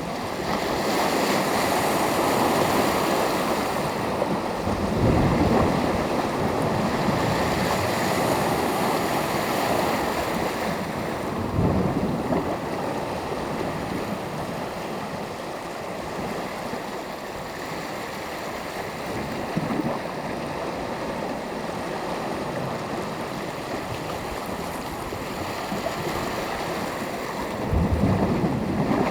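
Sea waves washing onto the shore: a steady rush of surf that swells and eases, with three heavier surges of a wave breaking.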